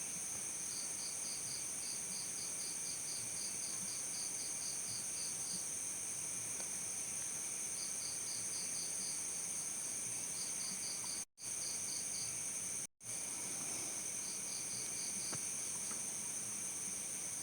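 A chorus of crickets chirping: a steady high-pitched trill, with runs of separate chirps at a few a second over it. About two-thirds of the way through, the sound cuts out completely for an instant, twice.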